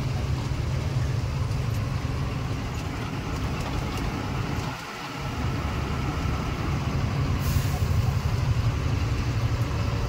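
Truck engine running as the truck drives along, a steady low drone that drops briefly about five seconds in, with a short high hiss about seven and a half seconds in.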